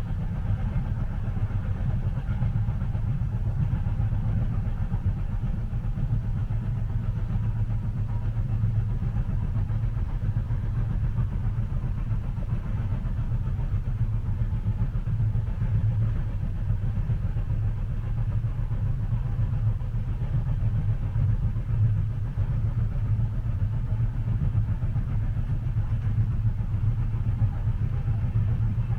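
Steady low rumble of a train carriage interior while the train is moving, even and unbroken with no distinct clicks.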